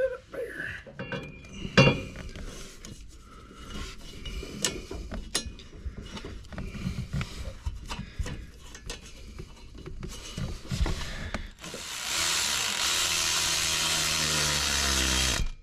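Hand tools and metal parts at work on a truck: clicking, clanking and knocking at irregular intervals, with one sharp knock about two seconds in. Near the end a loud steady rushing noise lasts about four seconds and cuts off sharply.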